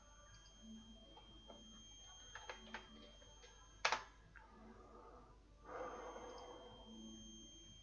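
Quiet room with a few faint clicks, one sharp click just before four seconds in, and a breathy rush like a person exhaling lasting about a second near six seconds in, over a faint steady high-pitched whine.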